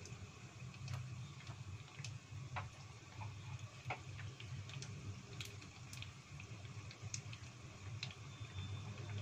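Hot oil crackling with irregular small pops around skewered tofu sempol deep-frying in a small pot, over a steady low hum.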